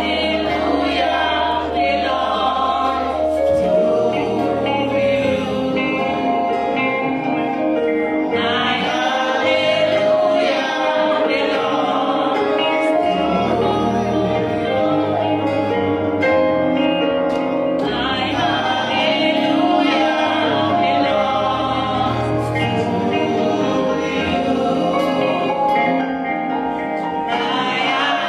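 Gospel praise team singing together into microphones over instrumental backing, with long held bass notes that shift every few seconds beneath the voices.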